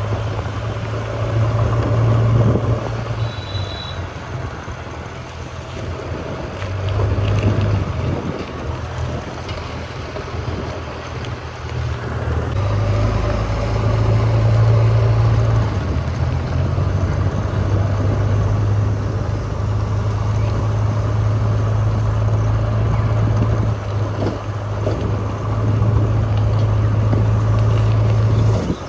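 JCB 3DX backhoe loader's diesel engine running as the machine drives along the road, its low hum rising and falling with the throttle every few seconds.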